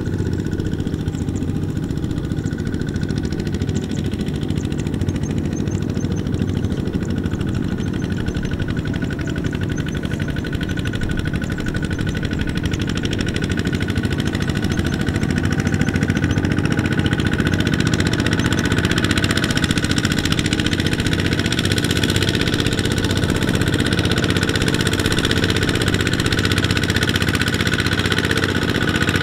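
Two-wheel walking tractor's single-cylinder diesel engine running steadily under load as it pulls a load of rice sacks through deep mud, growing louder about halfway through.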